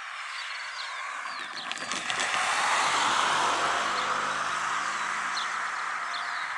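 A car drives over the level crossing and passes close by: tyres thud over the rails, then a rising tyre-and-engine noise, loudest about three seconds in, fades as it drives away. Birds sing throughout.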